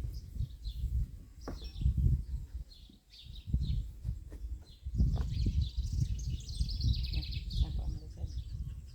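Small birds chirping over a low, uneven rumble of outdoor noise, the chirping busiest in the second half, with a few faint knocks.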